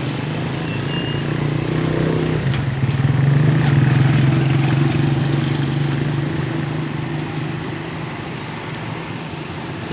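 An engine running steadily with a low, even hum. It changes note about two and a half seconds in, grows louder for a couple of seconds, then eases off.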